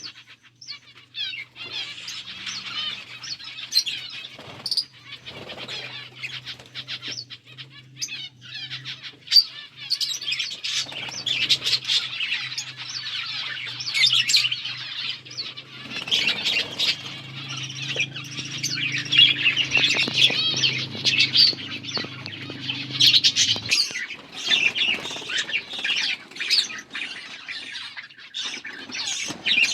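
A flock of budgerigars chirping and twittering continuously, with scattered sharp clicks. A low steady hum runs beneath and cuts off suddenly about three quarters of the way through.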